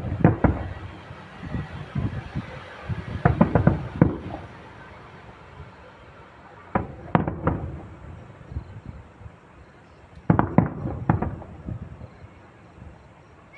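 Aerial fireworks shells bursting, in four clusters of several sharp bangs about every three and a half seconds.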